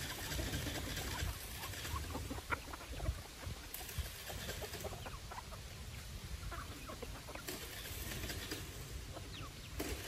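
A flock of hens and roosters clucking here and there in short calls while they peck at feed.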